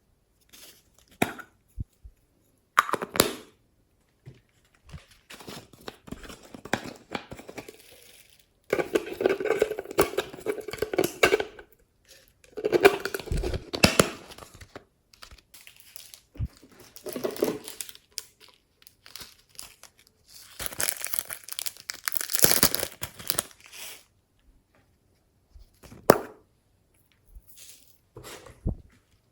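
Hands kneading, stretching and pulling apart glossy slime, in irregular bursts of a few seconds with short pauses between.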